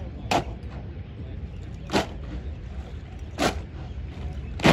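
Four sharp cracks about a second and a half apart, a soldiers' formation doing rifle drill in unison, each movement struck together, over a steady low rumble.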